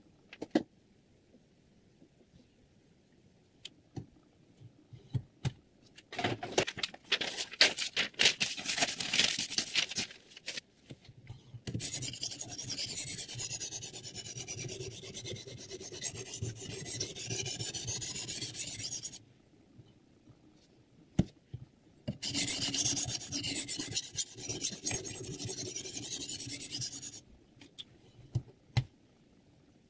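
Sharpening stone on a Hapstone R2 guided sharpener's rod rubbing along the edge of a clamped chef knife. It starts with clicks and a run of quick short scrapes, then gives two long spells of steady rubbing strokes.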